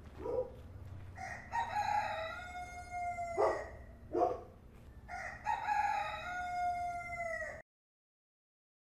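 A rooster crowing twice, each crow a long call of about two seconds that drops in pitch at its end, with a few short calls between; the sound cuts off suddenly about three-quarters of the way through.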